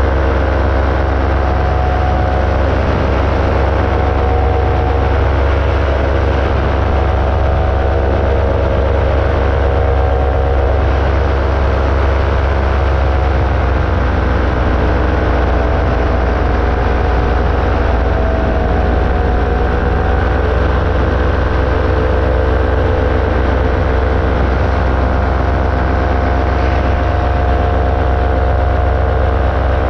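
Ultralight aircraft engine droning steadily in cruise flight, its pitch shifting slightly as the throttle changes, over a heavy low rumble.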